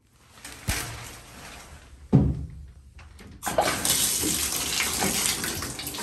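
A sharp thump about two seconds in, then a shower is turned on and water runs steadily with a hiss from about halfway through.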